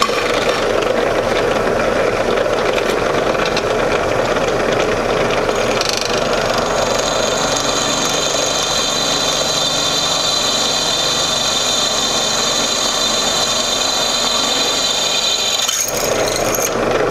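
Central Machinery 8-inch bench drill press running steadily while a twist bit drills into steel square tubing. From about six seconds in, a high-pitched squeal rides over the motor as the bit cuts the steel, easing off near the end.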